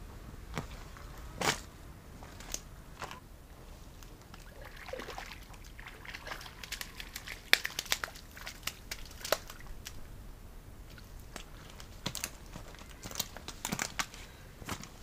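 Irregular crunches of boots on a shingle and seaweed foreshore, more of them in the second half, with scattered clicks.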